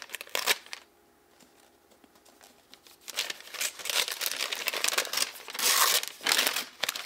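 Brown wrapping paper being torn open around a book: a short crinkle at the start, a quiet pause of about two seconds, then tape peeled back and paper ripped and rustled, loudest near the end.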